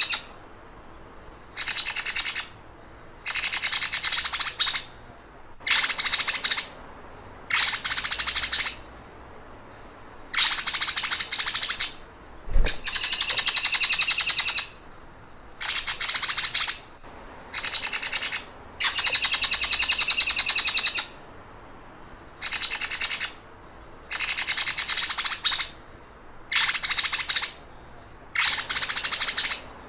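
Songbird giving a rapid, stuttering trill that sounds like a sewing machine running, in bursts of one to two seconds repeated over and over with short pauses between; a recorded song used as a tutor track to teach caged songbirds. A single brief low thump about halfway through.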